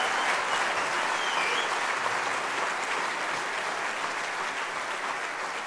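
Audience applauding, slowly fading away.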